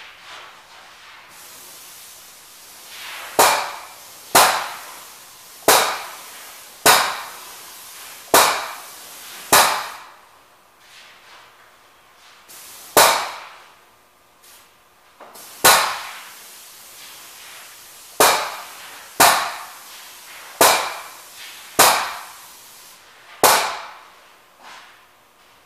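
Paint spray gun fired in short trigger-pulled bursts while spraying primer, each a hiss that starts abruptly and fades within about a second. About a dozen bursts, roughly one a second in two runs with a pause between.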